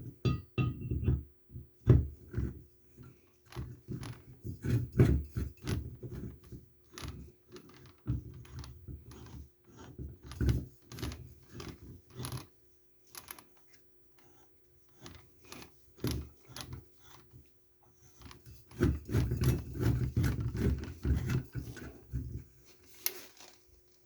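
Metal parts and hand tools being handled: irregular clicks, clinks and knocks, busiest for a few seconds near the end, over a faint steady hum.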